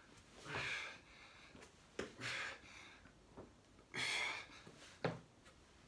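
A man breathing hard from exertion mid-set of push-up groiners, with three heavy exhales about two seconds apart and a couple of short, soft knocks in between.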